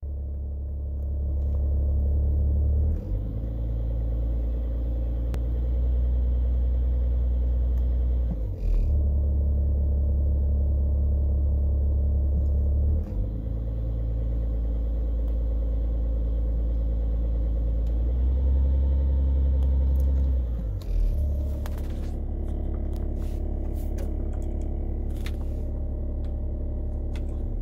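BMW X5 3.5d's 3.0-litre twin-turbocharged straight-six diesel idling at about 750 rpm, heard from inside the cabin as a steady low rumble that shifts in level every few seconds.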